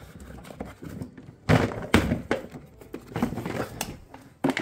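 Hard plastic toolbox being handled and opened: latches clicking and the lid and body knocking, with two louder plastic thunks about a second and a half and two seconds in.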